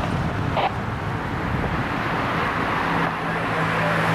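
Street traffic noise, with a steady low vehicle engine hum coming in about two and a half seconds in.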